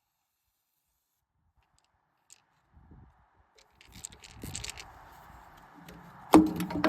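Silence, then from about three seconds in small clicks and scrapes of hand tools being handled on metal, and about six seconds in one sharp metallic clank with a brief ring.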